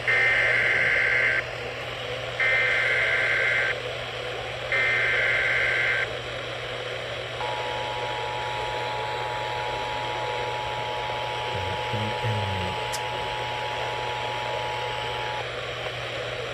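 Emergency Alert System signal heard over a radio: three short bursts of screeching digital header data, then the steady two-tone attention signal for about eight seconds, over constant hiss and a low hum. This opens a new alert, here a severe thunderstorm warning.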